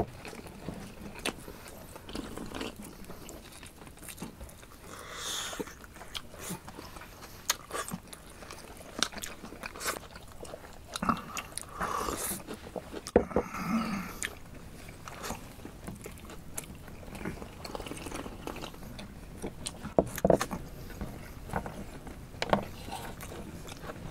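Close-up eating sounds: men biting and chewing khorkhog, stone-cooked meat torn off the bone by hand, with many small wet clicks and crunches.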